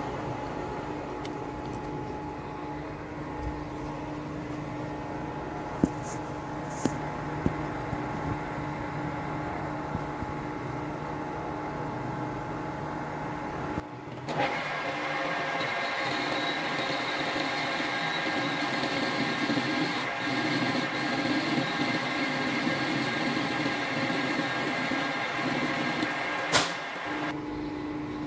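Metal lathe running, turning a small metal part: a steady machine hum and whine, with a few sharp clicks about six to seven seconds in. The tone changes about halfway through, and there is one sharp tick near the end.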